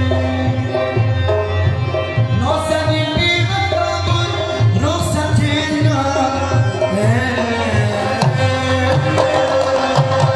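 Music from an Afghan chaharbeiti song: tabla drumming under a melody line, the drum strokes turning into a fast, even run near the end.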